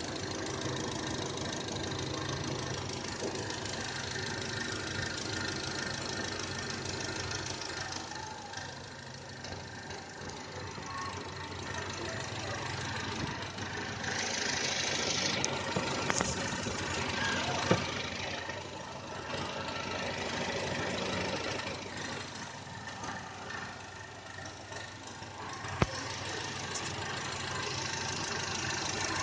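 Wuling Confero Lux+ engine running steadily with an odd cricket-like chirping mixed in, a noise whose source the owner cannot find. A single sharp click about three-quarters of the way through.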